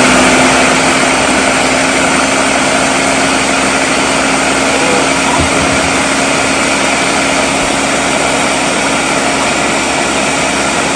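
Countertop blender motor running steadily, puréeing chipotle peppers in adobo sauce with onion and lime juice into a thick marinade paste: a loud, even motor whine with a low hum.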